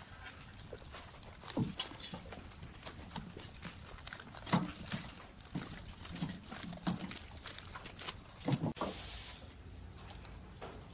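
Intermittent knocks and clinks at irregular intervals, the loudest a few seconds apart, then a short hiss about nine seconds in.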